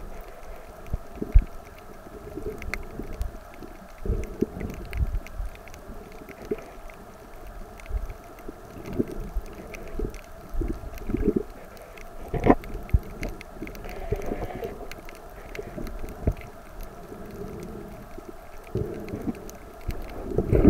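Underwater ambience picked up through a camera's housing: a steady low hum, irregular low knocks and thumps, and scattered faint clicks. The loudest knock comes about twelve seconds in.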